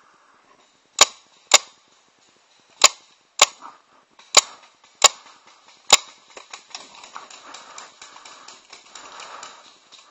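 Paintball marker firing seven single shots at an uneven pace, each a sharp pop, over the first six seconds. After that comes a quick, much fainter clatter of ticks and rustling.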